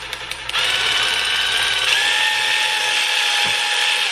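Cordless electric ratchet backing out a connecting-rod cap bolt: a few sharp clicks at first, then a steady motor whine that steps up slightly in pitch about two seconds in and cuts off at the end.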